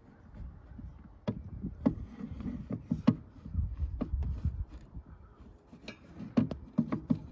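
Handling noise: scattered light knocks and clicks with some rubbing, over a low rumble, as cables and fittings behind the fridge vent are moved about.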